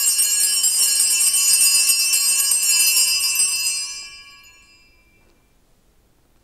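Altar bells, a cluster of small bells, shaken in a continuous jingle for about four seconds, then ringing out and fading. This is the bell rung at the elevation of the consecrated host.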